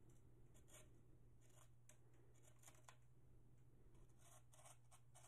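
Near silence, with a few faint, short scratchy strokes of a Wharncliffe folding-knife blade slicing into a sheet of lined paper, over a low steady hum.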